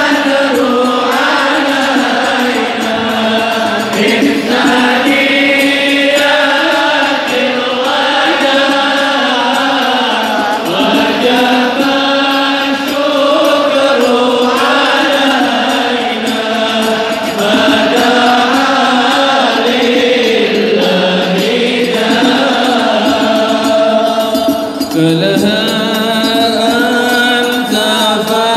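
A large crowd singing Islamic devotional chants (sholawat) together, loud and continuous.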